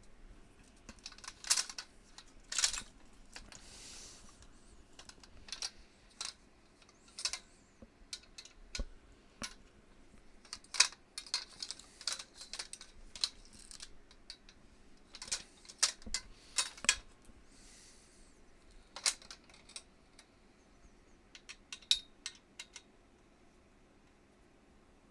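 Irregular light metallic clicks and clinks, some louder than others, with brief scraping or rustling, as small metal parts and tools are handled while the steel frame of a canopy tent is taken apart.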